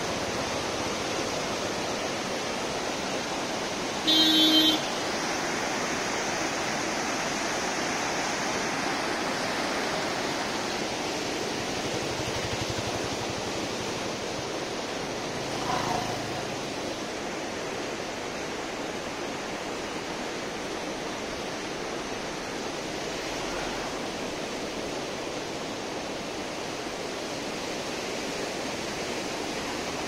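Steady rushing of the flooded Kosi River pouring through the barrage. About four seconds in, a vehicle horn sounds loudly for about half a second, and a fainter short tone sounds near the middle.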